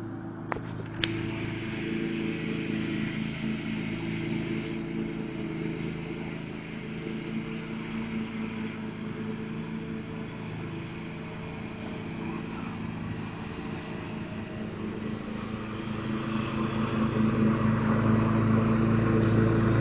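John Deere riding lawn tractor's engine running steadily as the tractor drives across the lawn, growing louder near the end as it comes closer. A couple of sharp clicks about a second in.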